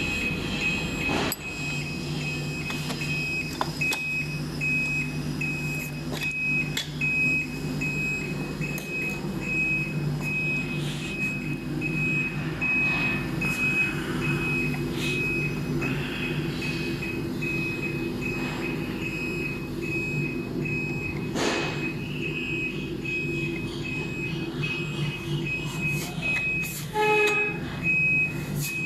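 Electronic beeping: a high tone repeating about twice a second, over a continuous low mechanical hum, with scattered light clicks and knocks.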